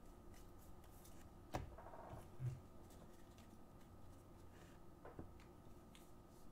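Faint flicking and sliding of a stack of Bowman baseball cards being sorted through by hand, with a few light clicks, the sharpest about a second and a half in.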